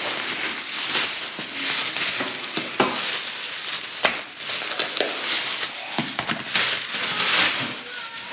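Plastic grocery bags and packaging rustling and crinkling in irregular bursts, with scattered sharp clicks and knocks of items being handled.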